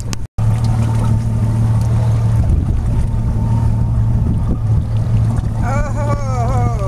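Boat engine running with a steady low hum, with wind and water noise. Near the end a high voice calls out.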